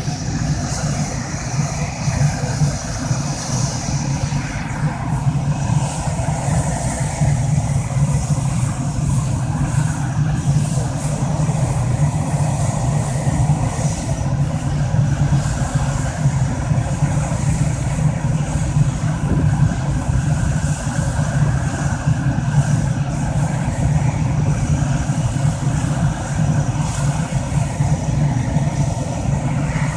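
The twin General Electric F404 turbofans of an F/A-18 Hornet run at ground idle. A steady, loud jet rumble carries a high whine that is strongest in the first few seconds.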